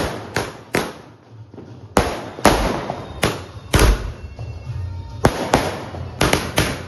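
A 60-shot sky-shot firework cake firing, about a dozen sharp bangs at uneven intervals, with a quick run of four near the end.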